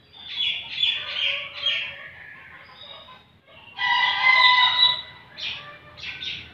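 Bekilus rooster calling: a run of about four short notes in the first two seconds, then a loud crow of about a second starting about four seconds in, followed by a few brief notes near the end.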